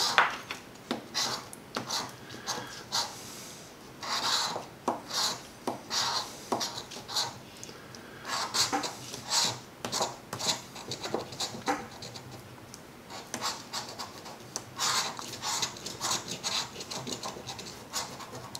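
A large copper coin scratching the coating off a paper scratch-off lottery ticket: quick rasping strokes that come in runs with short pauses between.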